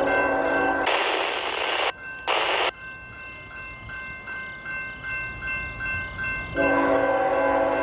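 Train horn on a Norfolk Southern ET44AC locomotive sounding for a grade crossing. A steady chord is cut about a second in by two short hissing blasts. The horn is silent for a few seconds, then the chord sounds again near the end. A grade-crossing bell rings throughout at about two and a half strokes a second.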